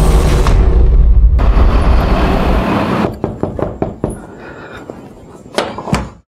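A car engine running with a steady low rumble that cuts off about two and a half seconds in, followed by a string of short, sharp knocks.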